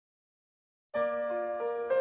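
Silence for about the first second, then the piano introduction of a slow love ballad begins: a chord, followed by single notes stepping in one after another.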